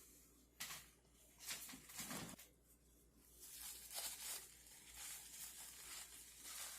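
Faint rustling and crinkling of a small plastic packet being handled and opened: a few short rustles, then a longer soft stretch of crinkling.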